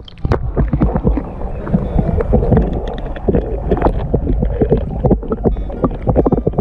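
Muffled water sloshing and knocking against an action camera held underwater: a dense low rumble with many short knocks through it.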